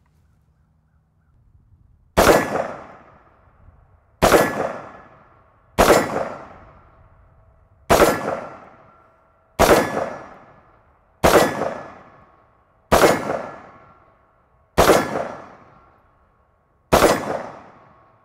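Stag Arms Stag 15 Tactical AR-15 rifle firing .223 Perfecta 55-grain rounds unsuppressed, in slow aimed single shots about two seconds apart. Each shot is a sharp crack with a ringing echo that fades over about a second: nine shots, and a tenth right at the end.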